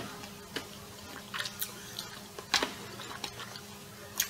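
A person chewing a mouthful of food close to the microphone: soft, wet mouth clicks and smacks at irregular intervals, with a few sharper ones.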